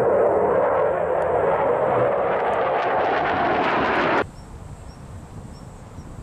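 Jet aircraft flying past, a loud steady roar that grows brighter and then cuts off suddenly about four seconds in. After the cut there is a quiet outdoor background with faint, regular insect chirps.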